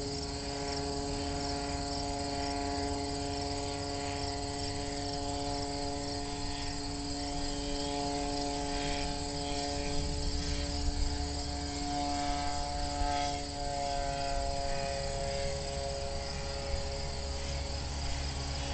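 Powered hang glider's motor droning overhead, its pitch shifting slightly as it circles, with crickets chirping steadily.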